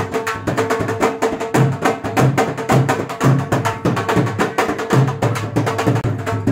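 Music with a steady drum beat, a low thump a little more than once a second under many sharp percussive clicks.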